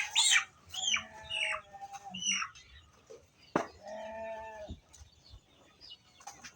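Chickens clucking and calling in short rising-and-falling notes, then a goat bleats once for about a second, a little past the middle.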